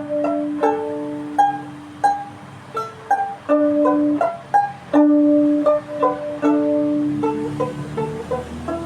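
Solo string instrument playing a slow, meditative melody of plucked notes that ring on after each attack, over a low note struck again and again.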